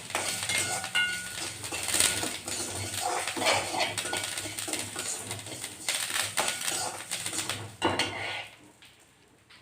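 A spoon scraping and clinking in a kadai, stirring roasting horse gram and spices with garlic and curry leaves in a little oil, in repeated strokes. The stirring stops near the end.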